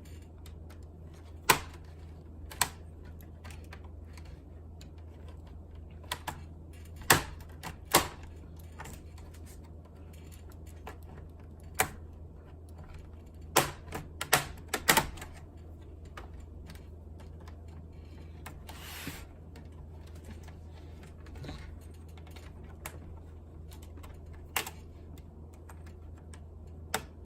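Scattered sharp plastic clicks and taps as a laptop's case and parts are handled and pried apart, with a brief soft rustle in the middle, over a steady low hum.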